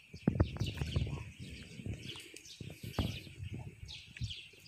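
Muddy pond water splashing and sloshing as a man wades in waist-deep with a hand scoop net: an irregular run of low, heavy splashes and thuds, loudest in the first second. High chirping runs steadily underneath.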